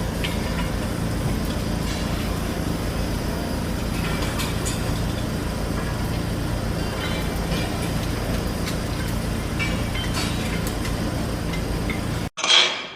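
Steady low mechanical rumble of a heavy engine or machine running, with faint scattered knocks and clatter over it. It cuts off abruptly near the end.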